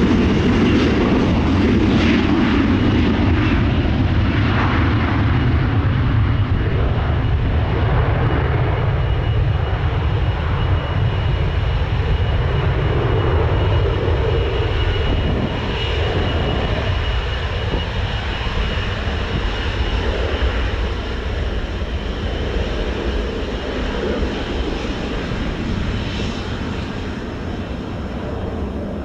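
Twin GE90 jet engines of a KLM Boeing 777-200 on take-off: a heavy, steady rumble with a thin high whine over it, slowly fading.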